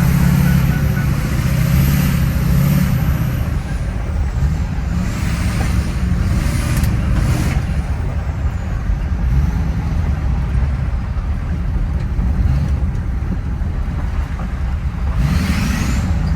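Ford 6.0 Powerstroke turbodiesel V8 running, its turbocharger giving a loud, high-pitched whistle over the engine's low rumble. The whistle glides down a couple of times and rises again near the end as the engine is revved.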